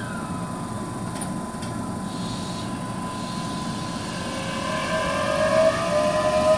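Keihan 7000-series electric train starting away from a station platform. It hums steadily at first, with a steady high tone. From about four seconds in, the VVVF inverter and traction motors begin a slowly rising whine that grows louder as the train accelerates.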